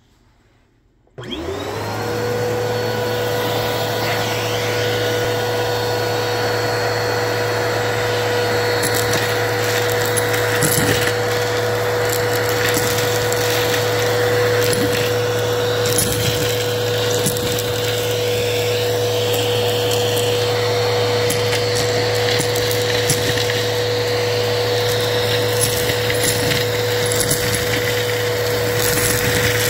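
Vacuum cleaner switching on about a second in, its motor rising to a steady whine. It then sucks sequins, beads and glitter through a bristled dusting brush attachment, with scattered clicks and rattles of the pieces being pulled in.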